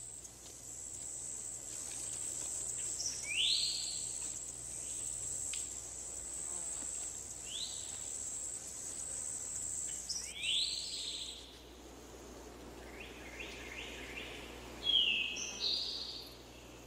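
Steady high insect trilling, like a cricket chorus, that cuts off about two thirds of the way through. Short rising bird chirps come every few seconds, with a quick run of calls near the end.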